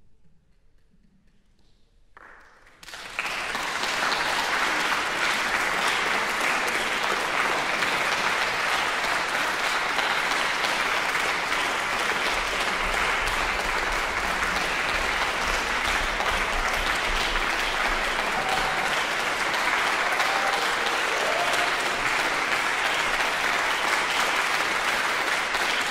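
Audience applauding, starting about three seconds in after near silence and then continuing steadily.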